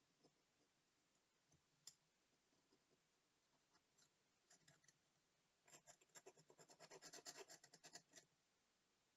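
Faint handling of small watch parts with fine tools: a few light isolated clicks, then about two and a half seconds of quick, scratchy ticking and scraping near the end.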